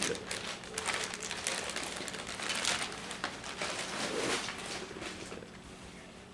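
Paper and plastic gift packaging rustling and crinkling as it is handled, busy at first and thinning out over the last few seconds.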